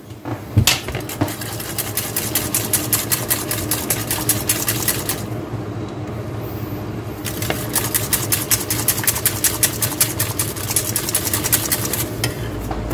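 Spiral wire whisk beating brown sauce in a stainless steel saucepan: fast, even scraping and clicking of wire against the metal pan, several strokes a second. It stops for about two seconds a little past the middle, then starts again. A steady low hum runs underneath.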